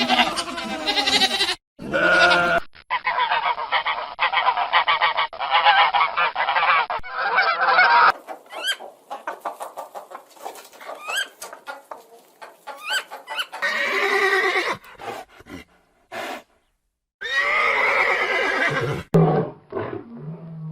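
Animal calls in several short clips cut together, the tagger leaning towards geese or other fowl. The loudest stretch is many calls overlapping, followed by scattered short rising calls.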